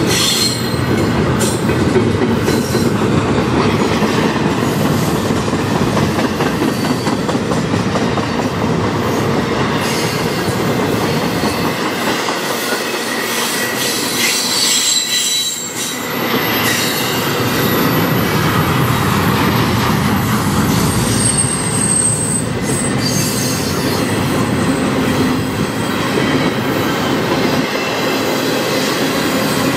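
Double-stack intermodal freight train's container well cars rolling past at speed: a loud, steady rumble of steel wheels on rail, dipping briefly about halfway. Thin high-pitched wheel squeals come and go through the middle of it.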